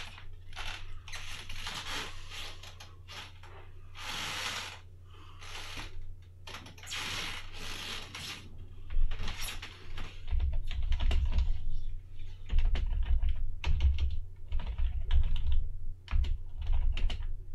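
Typing on a computer keyboard, in runs of key clicks that turn sharper and louder about nine seconds in, with low thumps among them. A steady low hum sits underneath.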